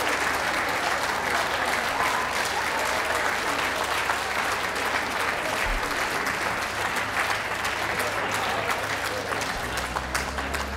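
Audience applauding steadily, a dense patter of many hands clapping. Music fades in under it near the end.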